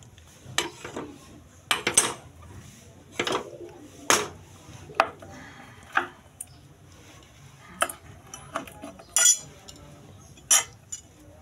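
Metal utensil clinking and knocking against an aluminium pressure cooker pot: about a dozen sharp, irregularly spaced strikes.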